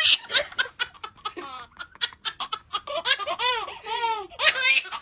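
High-pitched laughter: quick breathy giggles, then a run of rising-and-falling 'ha' notes about three seconds in.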